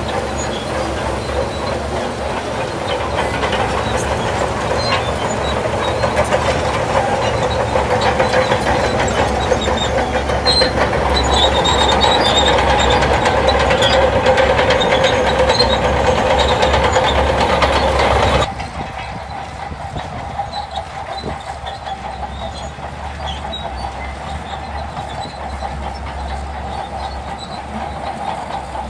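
Shantui DH17 C2 crawler bulldozer working: its diesel engine running under load with the steel tracks clanking and squeaking. The level climbs slowly, then drops suddenly to a lower level about two-thirds of the way through.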